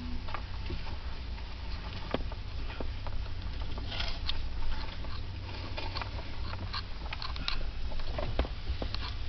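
Steady low rumble of a vehicle driving slowly on a snow-covered street, heard from inside its cab, with scattered small clicks and crackles throughout.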